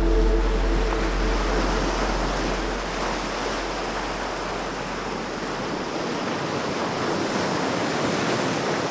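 Ocean surf washing steadily onto a beach, a continuous rushing hiss of breaking waves.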